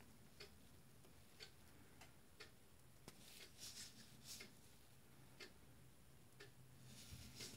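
Near silence: faint room tone with a soft tick about once a second, like a clock ticking, and faint rustles of handling a little past halfway and near the end.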